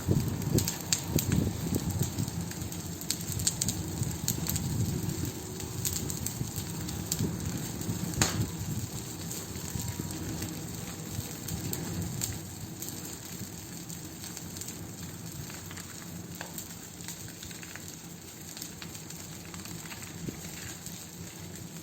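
Wood campfire burning, with many sharp snaps and pops over a low rumble of flames. The popping is busiest in the first half and thins out later, with one loud snap about eight seconds in.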